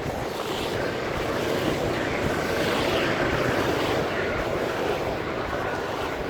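Steady noise of heavy rain with road traffic passing, swelling a little in the middle.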